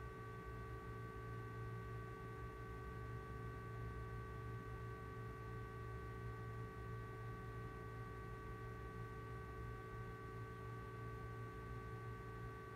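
Steady low electrical hum with a few faint, steady high-pitched tones over it; nothing else happens.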